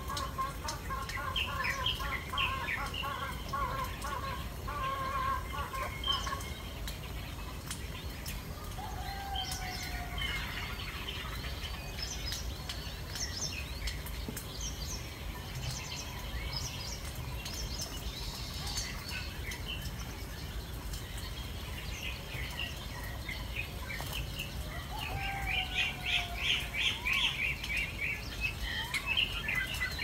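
Birds chirping and calling in short repeated phrases over a steady low background rumble, with a louder quick run of chirps near the end.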